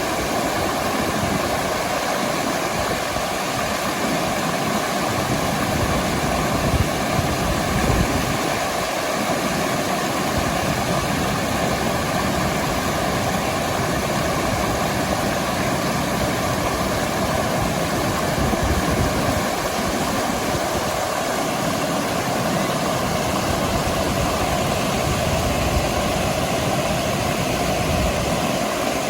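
Steady rush of fast-flowing stream water at the top of a waterfall, with a few brief low rumbles.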